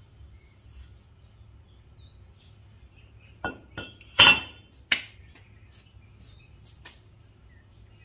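Cast-iron brake rotor being set down on concrete: a handful of metal clanks and clinks between about three and a half and five seconds in, the loudest ringing briefly. Faint bird chirps earlier.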